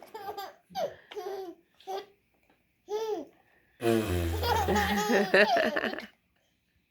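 Six-month-old baby laughing in short bursts, then a longer run of laughter from about four seconds in, mixed with an adult's low, humming funny noise; it falls quiet about a second before the end.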